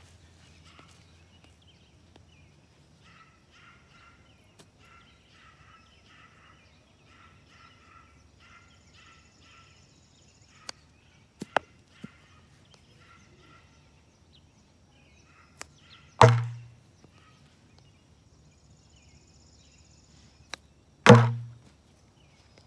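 Golf balls chipped with a 7-iron into a plastic bucket lying on its side: a light click of club on ball, then about half a second later a loud thud as the ball drops into the bucket, twice, the second near the end. A few sharp clicks come before them, and faint bird chirps repeat in the background.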